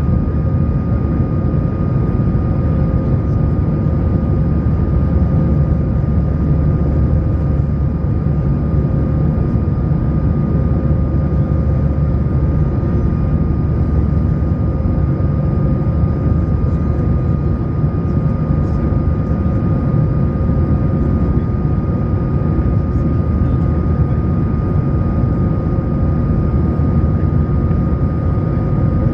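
Steady jet cabin noise aboard an Airbus A220-100: a deep, even rumble of engine and airflow with a steady high whine from its Pratt & Whitney PW1500G geared turbofans.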